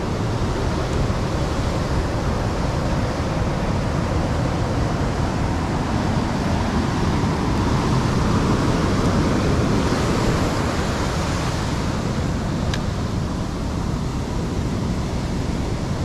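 Ocean surf breaking and washing up a sandy beach, a steady rush of water.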